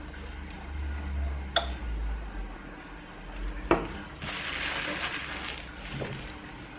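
Handling noise from unpacking a small USB plasma ball: two sharp plastic clicks as its ribbed base and USB cable are handled and the ball is set down on the table, then plastic packing wrap crinkling for about a second and a half.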